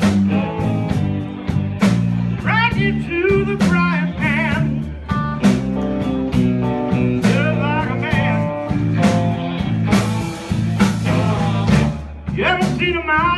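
A blues band playing live: electric guitar, bass guitar and drums under a wavering lead line with heavy vibrato, which sounds like a harmonica played into the vocal microphone.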